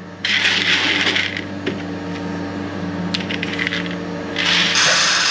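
Dry shelled corn kernels pouring and rattling, in two spells: one about a quarter second in lasting about a second, and another starting about four and a half seconds in. A steady machine hum runs beneath.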